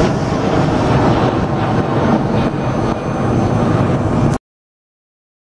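Rolls-Royce Trent 700 turbofans of an Airbus A330-243 at takeoff thrust as the airliner climbs away, a loud steady jet roar heard from the ground. It cuts off suddenly about four seconds in.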